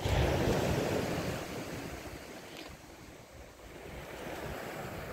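Sea waves breaking on the shore: a wash of surf right at the start that fades over about three seconds, then the next one building near the end.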